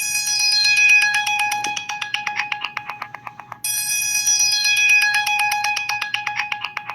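A preloaded ringtone playing on a Samsung GT-I5500L phone: a bright, bell-like melody of quick, even pulses over held tones. It repeats in a loop of about four seconds and starts over once, a little past halfway.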